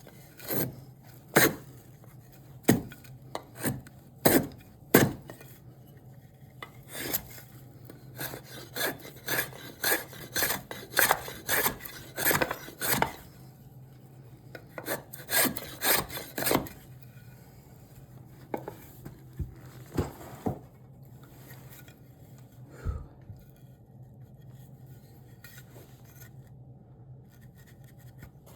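Repeated scraping strokes of a hand tool working cherry wood, rasp- or saw-like. The strokes come about one a second at first, then quicken to about two a second, and thin out to a few isolated ones after about twenty seconds.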